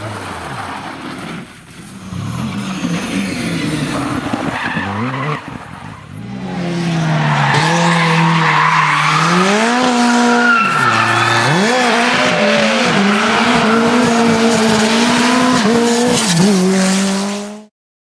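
Rally cars at speed on tarmac, in several quick cuts: engines revving hard, with brief dips and rises in pitch at gear changes and lifts, and tyres skidding. The sound cuts off abruptly near the end.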